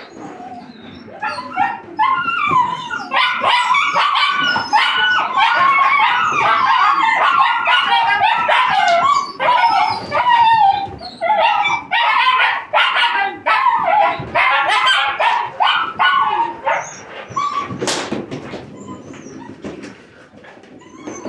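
A litter of high-drive working-line puppies barking, yipping and whining all at once, many voices overlapping, as they jump and tug at a rag. The din thins to scattered yips near the end.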